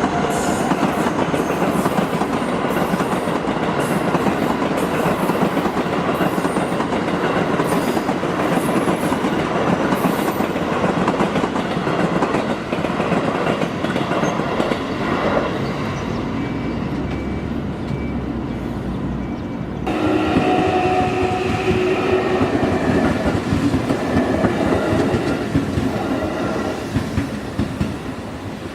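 Trains on the JR Kyoto Line (Tokaido Main Line) passing at close range, their wheels clattering over the rail joints in a continuous rumble. About twenty seconds in, the sound changes abruptly and steady tones join the rumble, which fades near the end.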